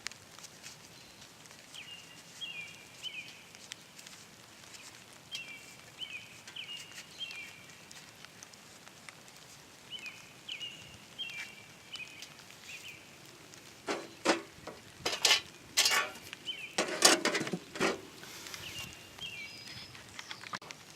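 A songbird sings a short three-chirp phrase, repeated every few seconds over a faint steady hiss. About two-thirds of the way through, a burst of loud cracks and knocks from close by lasts a few seconds.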